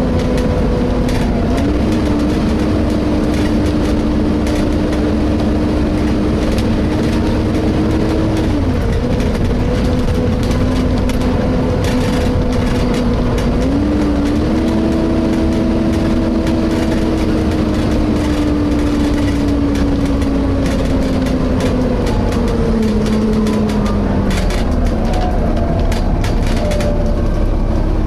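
Volvo B7TL double-decker bus heard from inside the saloon while on the move: engine and drivetrain running over steady road rumble, with a whine whose pitch steps up twice and falls away near the end as the bus changes speed.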